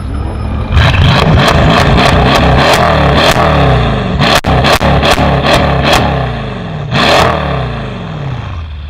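Mercedes-Benz CLS63 AMG's 5.5-litre twin-turbo V8, tuned to about 750 hp and breathing through a catless downpipe and valved Fi Exhaust, revved hard and repeatedly in place, with a rapid string of sharp exhaust cracks over the revs. A last short blip comes about seven seconds in before the engine settles back down.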